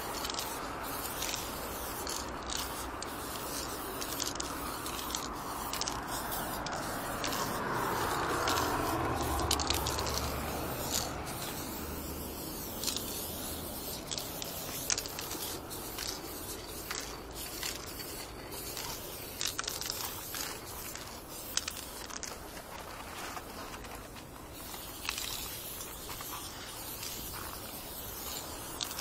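Aerosol spray-paint can hissing in many short bursts against a corrugated metal wall. A low rumble swells and fades about a third of the way in.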